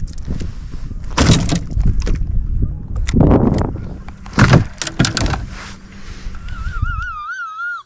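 Wind rumbling on the microphone, broken by several loud splashes and knocks from the water and kayak. Near the end the rumble cuts out and a wavering high-pitched wail begins.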